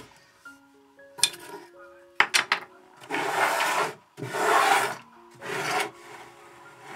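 A hand brushing over the top of a wooden beehive box: three rough swishing strokes, each under a second long, after a few light clicks of wood and metal.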